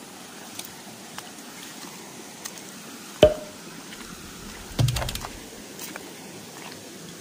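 Footsteps over loose rocks: scattered, irregular clicks and knocks of stones shifting underfoot over a steady hiss, with the sharpest click about three seconds in and a duller knock near five seconds.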